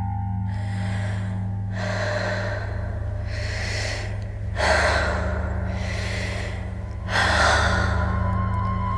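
Stage soundtrack of heavy breathing and gasps, a breath every second or so, over a steady low drone. The loudest breaths come about halfway through and again near the end.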